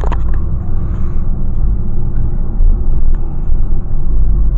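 Motor vehicle on the move: a loud, steady low rumble of engine and road noise.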